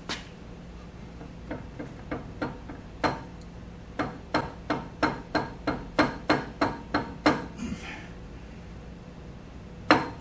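A run of sharp metallic clicks, about three a second for a few seconds midway through, with scattered clicks before it and one louder knock near the end. They come from a long steel bar being worked back and forth on a Monarch 10EE lathe spindle held in a fixture, on a tight fitting.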